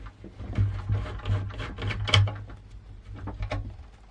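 Screws being fitted to secure a drive bay unit in the 5¼-inch bay of a metal PC case: a run of irregular small metal clicks and knocks, with dull thuds in clusters.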